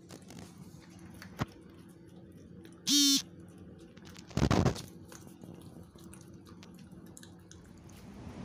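Small dogs eating from a plastic plate, with a few faint clicks. About three seconds in comes a short, loud, high squeal, and a second or so later a brief rough burst of noise.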